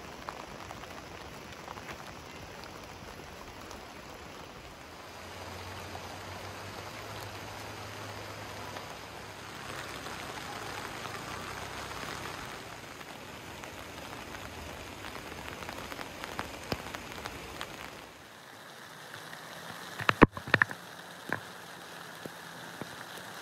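Steady rain falling and pattering on surfaces. Near the end, a few loud, sharp taps stand out over it.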